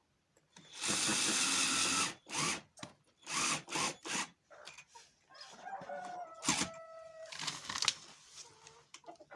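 Chickens clucking, with a rooster crow around the middle: a drawn-out call that bends and then holds one pitch. Early on there is a loud, even rush of noise lasting just over a second, followed by several shorter bursts of work noise.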